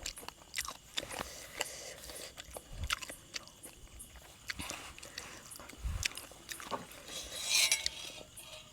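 Close-up chewing and crunching: a person biting and eating mouthfuls of spicy salad with chicken feet, in many short irregular clicks. Crickets chirp steadily and faintly in the background.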